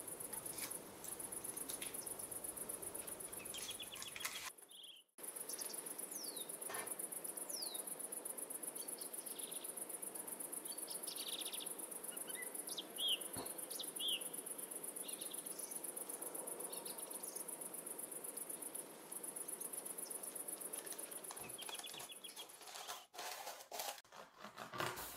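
Insects chirping steadily in a high, fast pulse, cricket-like, with a few short bird chirps. The sound cuts out briefly about four and a half seconds in.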